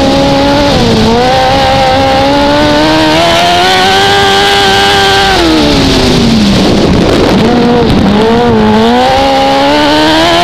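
Dwarf race car's motorcycle engine heard from on board under racing throttle. The revs climb steadily, fall sharply about halfway through as the driver lifts for the turn, waver low and rough through the corner, then rise again on the way out.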